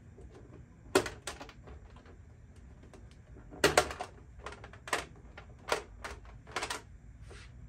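Sharp, irregular plastic clicks and taps from the body shell of an ARRMA Mojave 4S RC truck being pressed and handled by hand. There are about nine, some in quick pairs.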